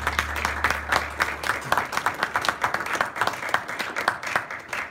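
An audience clapping, with many individual claps standing out. The low end of background music fades out in the first second or so, and the applause cuts off suddenly at the end.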